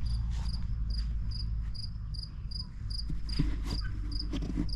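A cricket chirping steadily in short high-pitched chirps, about two and a half a second, over a low rumble, with a few knocks and rustles in the second half.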